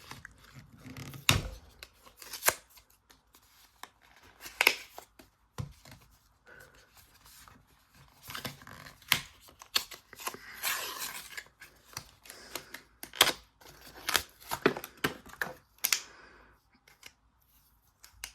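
A plastic snake twist puzzle being handled and turned: irregular sharp clicks and clacks, with short bursts of rustling.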